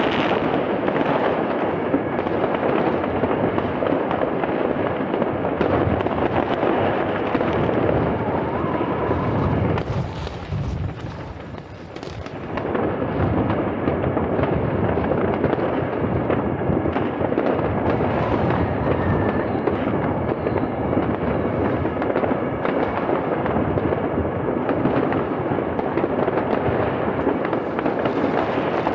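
New Year's Eve fireworks: rockets and firecrackers going off all around in a dense, unbroken barrage of bangs and crackling, easing briefly about ten seconds in before picking up again.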